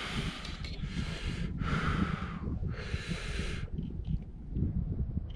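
An angler breathing hard and close to the microphone while playing a hooked trout: a run of loud breaths about one a second, pausing near the end. Wind rumbles on the microphone underneath.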